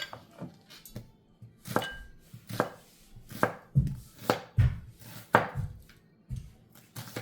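Kitchen knife slicing onions on a chopping board: a series of single cuts, each knocking on the board, roughly one a second and loudest through the middle stretch.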